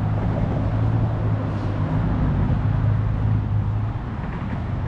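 Steady low mechanical hum, like an engine running, over road traffic noise.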